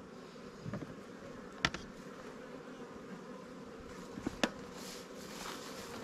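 Honeybees buzzing steadily around their hive, with two sharp clicks, one about a second and a half in and one past four seconds.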